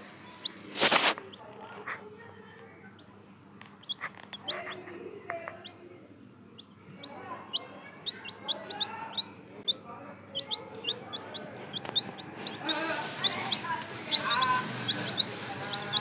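Baby chickens peeping: short high cheeps, scattered at first and coming several a second through the second half. One brief loud burst of noise about a second in.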